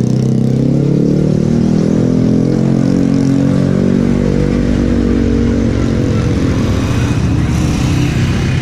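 A passing motor vehicle's engine running loud and close, its pitch sinking slowly as it goes by, over road noise.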